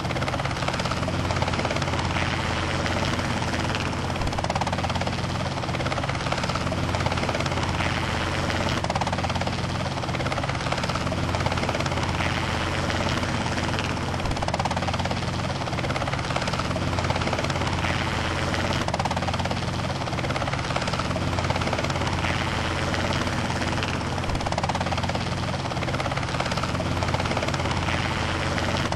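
Helicopter in flight: a steady, unbroken drone of engine and rotor.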